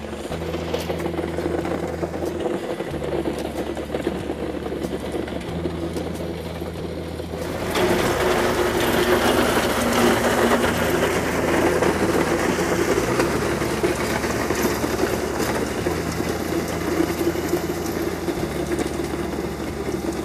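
Kubota MX5100 tractor's diesel engine running steadily under load as it drags a land plane over a gravel road, the blades scraping and rolling loose gravel. The gravel grinding gets much louder about seven and a half seconds in.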